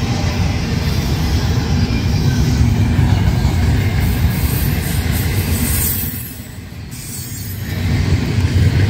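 Double-stack intermodal container train rolling past close by: a steady rumble and rattle of steel wheels on rail and well cars. The level dips briefly about six seconds in, then builds again.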